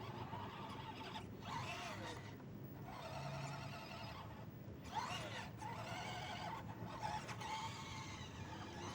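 Motor and gear whine of a 6×6 RC truck, starting and stopping several times, its pitch climbing sharply as it speeds up about five seconds in and falling as it slows.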